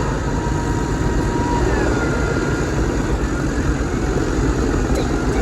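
Tractor diesel engine running steadily under load while pulling a plough through wet ground, heard from inside the cab as a constant low rumble.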